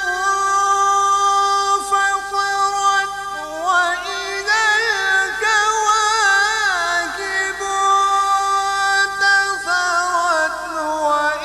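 A male qari's melodic Quran recitation: one voice drawing out long held notes, climbing higher about three and a half seconds in with quick wavering turns, then settling back down before starting a new phrase near the end.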